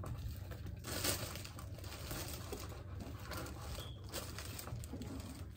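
Plastic oven bag rustling as hands push onion pieces into a raw turkey inside it.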